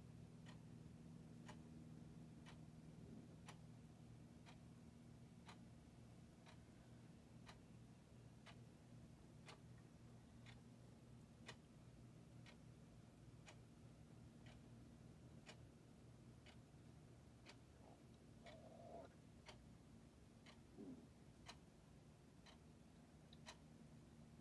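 Faint clock ticking steadily, with evenly spaced ticks over a low steady hum in the room; a couple of small faint sounds come near the end.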